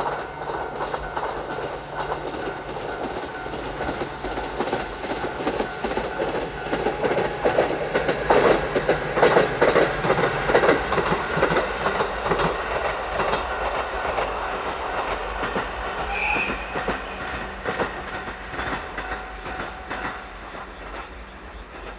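Diesel railcar train passing: engine drone under a steady clickety-clack of wheels over the rail joints, loudest about nine to eleven seconds in, then fading as it draws away near the end.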